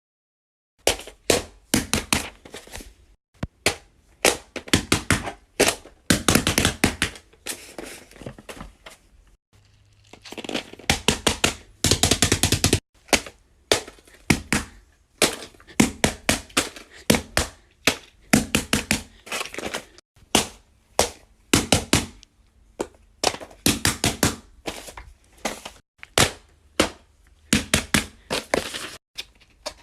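Bubbles of a silicone pop-it fidget toy being pressed one after another: a fast, uneven run of short pops and clicks, several a second.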